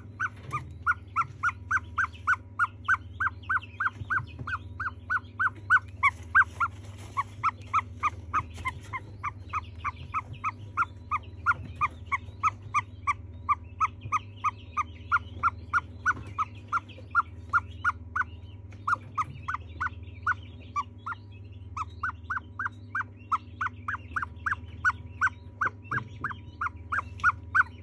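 Ostrich chick peeping over and over, short single-pitched peeps about three a second, with a brief pause about three quarters of the way through. A steady low hum runs underneath.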